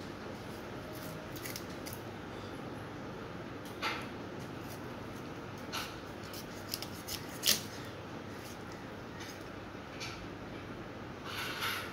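Raw broiler chicken being cut by hand against a boti, a fixed curved blade, giving a few short sharp slicing and scraping sounds, the loudest about seven and a half seconds in, and a longer scrape near the end, over a steady background hiss.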